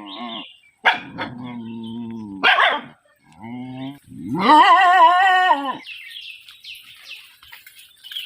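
A dog barking and howling in several long, drawn-out calls, the last and loudest wavering in pitch, at a scary stand-in for a tiger.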